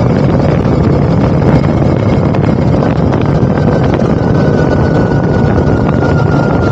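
Motorcycle engine running steadily while riding, with wind noise on the microphone. A faint whine that slowly falls in pitch comes in about halfway.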